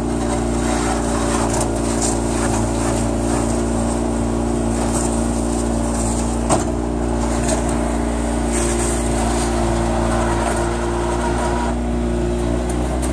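Kubota RTV500 utility vehicle's engine running at a steady speed while the machine drives through snow pushing a front snowblade, heard from the driver's seat. A single knock comes about six and a half seconds in.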